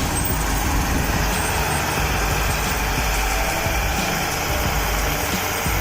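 Heavy vehicle engine running steadily, a constant low rumble with mechanical noise.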